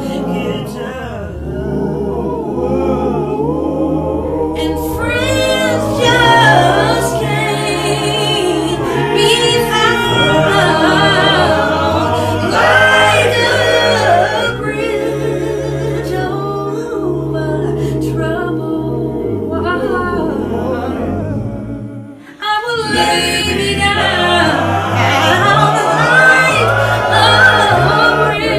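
A cappella vocal performance: a woman's solo voice singing sustained, ornamented lines with vibrato over a layered, multitracked male vocal harmony backing, with no instruments. The voices break off briefly about three-quarters of the way through, then come back in full.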